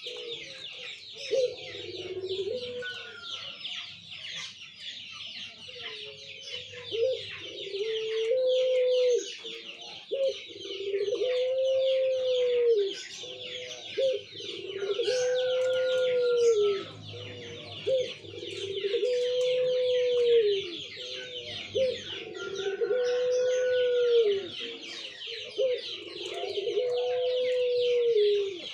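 A caged puter pelung dove cooing over and over. Each coo is one drawn-out note that rises, holds and falls, repeated every three to four seconds. A continuous high-pitched chirring runs underneath.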